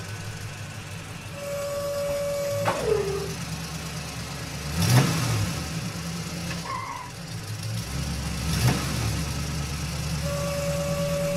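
Car engine sound effect running steadily, its pitch shifting a couple of times, with a few sharp clicks and two held tones that each end in a click.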